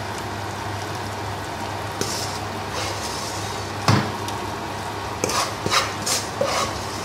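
Beef broth boiling in a large stainless steel stockpot, a steady bubbling hiss. A sharp knock of a utensil against the pot comes about four seconds in, and a few short clatters follow near the end.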